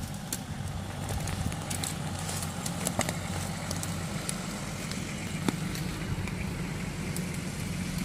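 An off-road SUV's engine running steadily at low revs as it drives slowly, with scattered sharp clicks and cracks over the hum.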